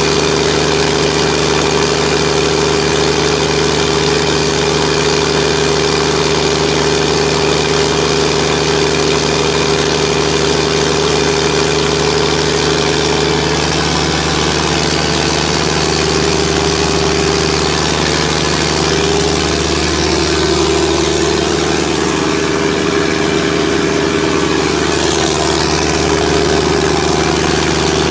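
180 kVA John Deere diesel generator set running steadily at constant speed, a loud, even engine drone that holds the same pitch throughout.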